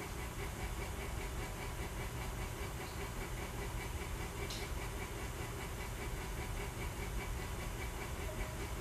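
Steady machine-like hum and hiss, with one faint click about four and a half seconds in.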